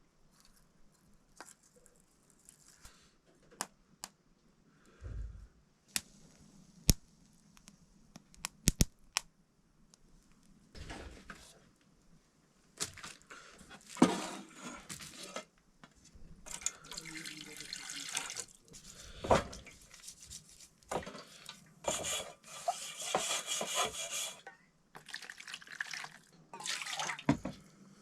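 Kitchen work: scattered sharp knocks and clinks of utensils, then water being poured and splashed in repeated bursts of a second or two, as in rinsing food or pots.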